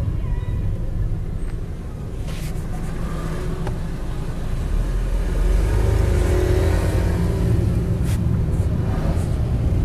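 Car driving, with a steady low engine and road rumble heard from inside the cabin, getting a little louder about halfway through.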